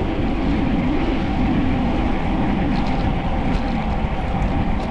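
Steady wind rush over an action camera's microphone while riding a road bike, mixed with the hum of the tyres rolling on tarmac.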